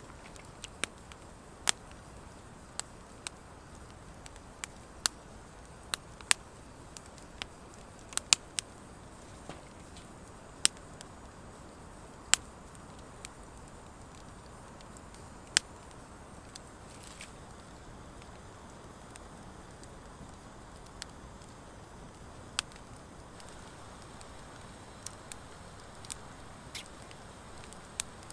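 Wood fire of driftwood and dry hardwood logs burning in an open fire pit: irregular sharp crackles and pops over a soft steady hiss of the flames, with the pops sparser in the middle.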